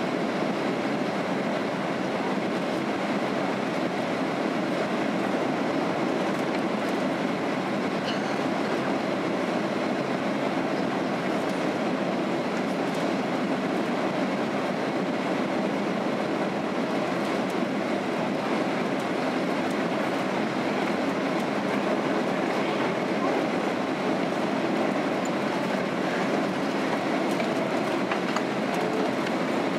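Steady rushing cabin noise of a Boeing 767-300 airliner, airflow and jet engines heard from a window seat over the wing, on approach with the flaps extended.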